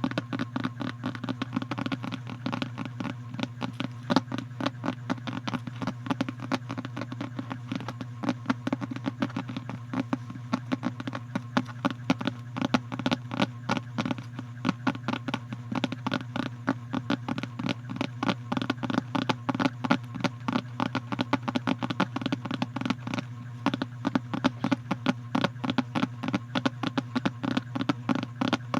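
Close-up ASMR trigger sounds: rapid, irregular clicks and taps, several a second, over a steady low hum.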